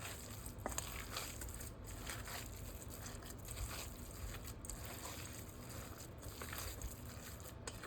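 Faint crinkling and handling noises from preparing a meatball mixture, over a low steady hum.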